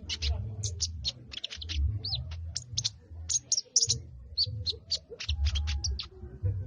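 Small bird known locally as the sogon, chattering: rapid short, high chirps several a second, over a low, uneven rumble.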